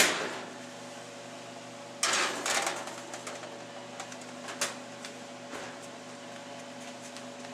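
A metal baking sheet clattering as it is set into the oven, then a louder rattling clatter about two seconds in as the oven door is shut. A steady electrical hum runs underneath.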